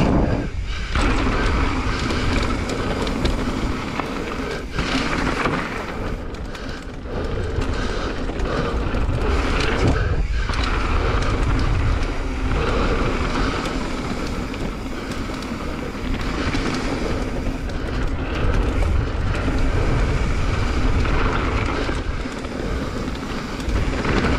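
Mountain bike rolling fast down a dirt trail: tyre noise over dirt and gravel and the bike rattling, under a steady low wind rumble on the microphone. It drops out briefly a few times.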